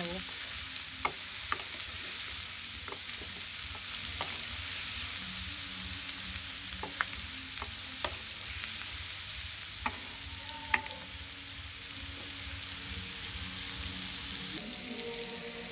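Sliced onions, carrots and green chillies sizzling in hot oil in a non-stick kadai as they are stir-fried, with a steady hiss and scattered sharp clicks of the spatula scraping and tapping the pan.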